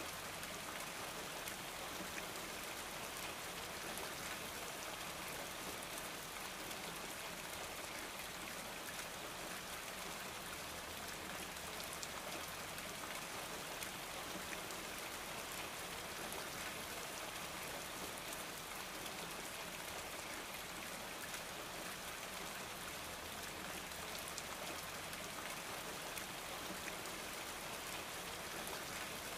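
A steady, even hiss of noise, like rain.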